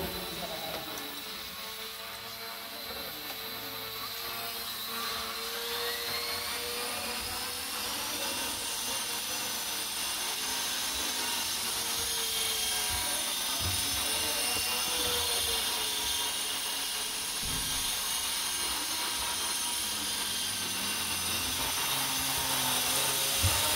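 Electric motors of small indoor RC aircraft: a low, wavering propeller buzz, then about five seconds in a small electric RC helicopter's motor whine rises in pitch as it spools up and settles into a steady high whine.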